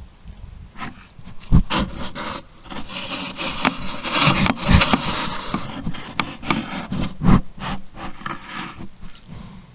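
Bull elk nosing and rubbing against a trail camera, its muzzle and fur scraping and knocking on the housing right at the microphone. It makes an uneven run of rasping scrapes and bumps, loudest around the middle, then fades near the end.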